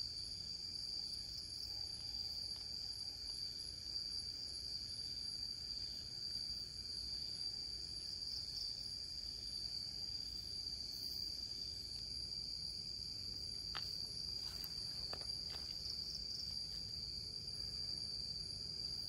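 Night-time insect chorus in rainforest, a steady high-pitched trill that never lets up, with a few faint clicks about three-quarters of the way through.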